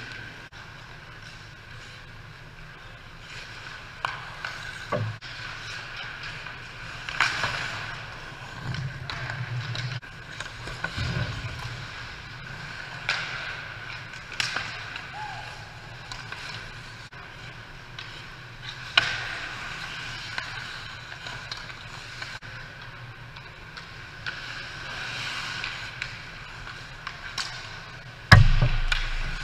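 Pickup ice hockey on an indoor rink: skate blades scraping and carving the ice, with sticks and puck clacking in sharp knocks every few seconds and a loud thump near the end, over a steady hum.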